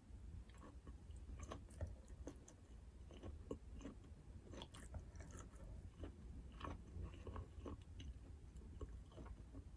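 Close-miked chewing and biting of food: irregular wet mouth clicks and small crunches, faint, over a low steady hum.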